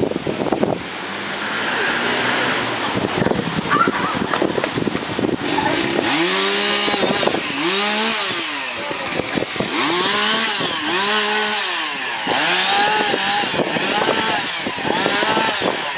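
Two-stroke chainsaw cutting up fallen tree branches. From about six seconds in, its engine revs up and drops back again and again, rising and falling in pitch every second or two.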